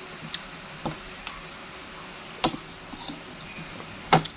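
Eating sounds: a handful of sharp clicks and taps, the loudest about halfway through and a double one near the end.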